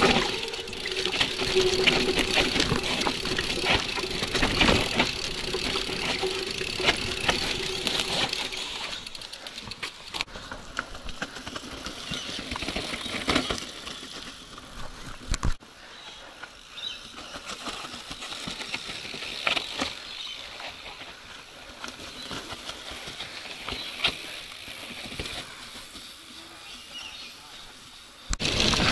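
Mountain bike riding down a rough dirt trail, with tyres crunching and the bike rattling and knocking over rocks and roots. About nine seconds in it drops much quieter, leaving scattered clicks and one sharp thump.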